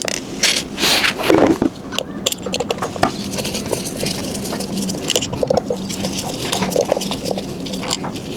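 Repeated small clicks, taps and scrapes of hand work on a scooter wheel and tire, with a pigeon cooing about a second in.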